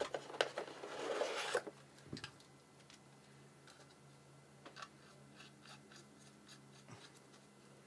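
Cardboard and plastic rubbing and scraping as a small plastic Wi-Fi router is slid out of its box, followed by a few faint clicks as it is handled.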